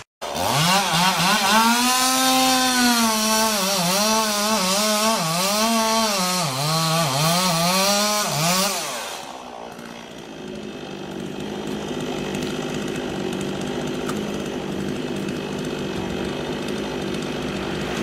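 Two-stroke chainsaw running at high revs, its engine note wavering up and down as the throttle is worked through a cut, for about nine seconds. It then gives way to a fainter chainsaw running steadily.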